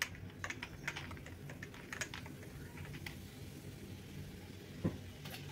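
Spoon stirring ice cubes in a tall glass of iced soda drink: irregular light clinks and taps of ice and spoon against the glass, with one louder knock near the end.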